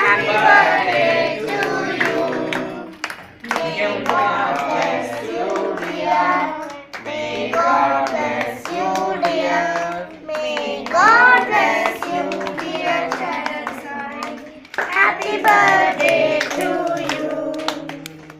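A group of children and women singing a song together, with hand claps keeping time.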